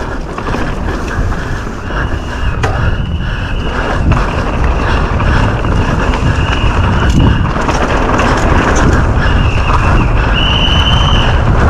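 Downhill mountain bike run heard from a rider-mounted camera: wind rushing over the microphone and tyres rumbling over rough trail, getting louder as speed builds, with a few sharp knocks and a high squeal coming and going.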